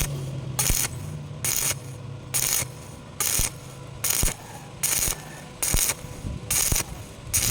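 Stick-welding arc on pipe crackling in short bursts about once a second, the arc struck and broken in a steady rhythm, as in a stitch or whip technique for vertical welding, over a low steady hum.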